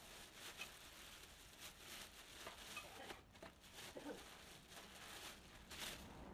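Near silence: faint room tone with a few soft, scattered ticks and rustles.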